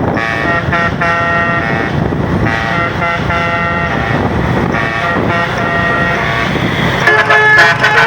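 Bus 'telolet' (basuri) musical air horn playing a quick tune of changing notes over a low rumble of engine and traffic. About seven seconds in, a louder, brighter horn tune takes over.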